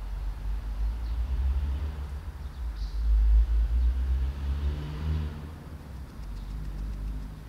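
A car driving past: its engine note swells and rises in pitch around the middle, then fades, over a steady low rumble.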